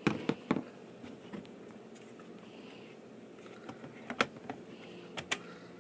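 A few sharp plastic clicks and taps, three at the very start and a few more around four and five seconds in, as the laptop's bottom memory cover is pressed down into place.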